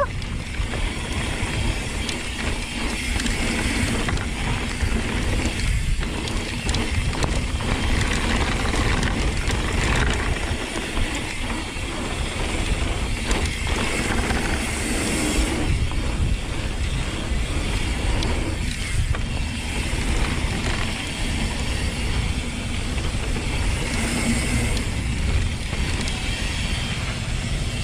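Mountain bike rolling down a dirt trail: steady rumble of tyres and frame over rough ground, with the ratcheting click of the rear freehub while coasting and the rattle of the chain and parts.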